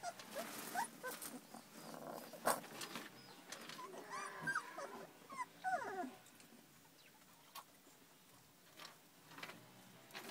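Young puppies play-fighting, giving many short, high whimpers and squeals with scuffling clicks. The calls stop about six seconds in, leaving only a few scattered scuffles.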